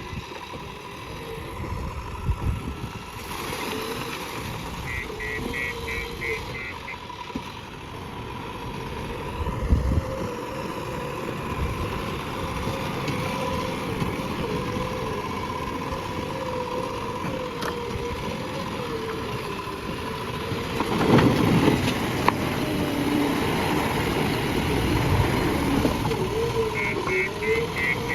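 JCB backhoe loader's diesel engine running, its pitch wavering as the load changes, with a louder, rougher surge about three-quarters of the way through.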